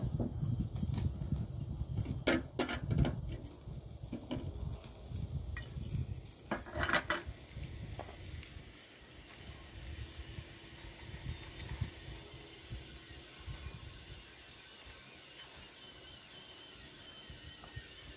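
Handling sounds over a charcoal fire: a ceramic teapot clinks as it is set on a kettle, and a plastic tub is handled, giving a run of sharp clicks and knocks over a low rumble. The clicks stop about eight seconds in, leaving a faint steady hiss.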